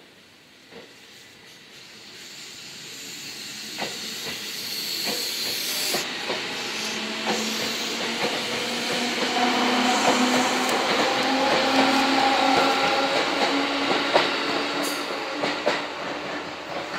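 Seibu 101-series electric train pulling away, growing louder into the middle and easing off near the end. Steady motor tones run over the wheel-and-rail noise, with repeated sharp clicks as the wheels cross rail joints.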